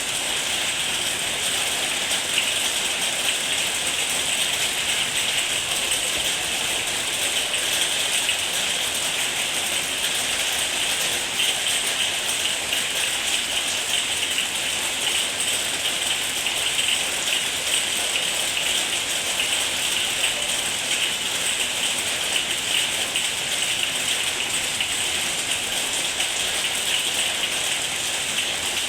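Thunderstorm rain falling steadily, an even hiss of rain with no breaks or sudden sounds.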